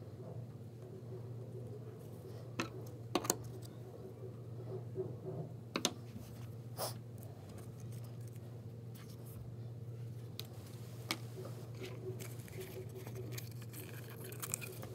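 Light taps, clicks and rustles of hands pressing yarn onto a glued piece of cardboard and handling the card on a wooden desk, a few separate small knocks over a steady low room hum.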